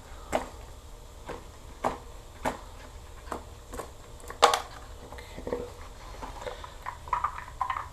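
Irregular small sharp clicks and taps of toilet closet bolts and wing nuts being handled and positioned at the floor flange, the loudest about four and a half seconds in.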